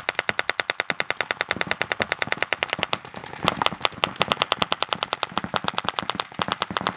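Paintball markers firing in rapid strings, about a dozen shots a second, with a short lull about three seconds in.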